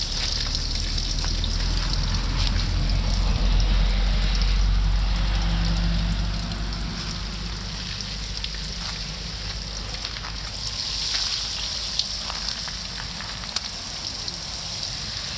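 Water spraying steadily from a hose onto potted succulents, a continuous hiss that swells again about eleven seconds in. A low rumble under it fades about seven seconds in.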